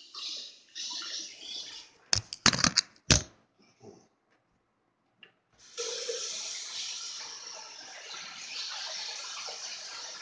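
Tap water running and splashing, with a few loud knocks a little over two seconds in; from about six seconds in the tap runs in a steady stream.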